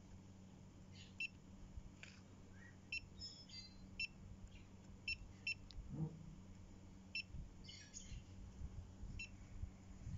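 Topcon GTS-239N total station's keypad beeping: about eight short, high, identical beeps at irregular intervals, with faint bird chirps.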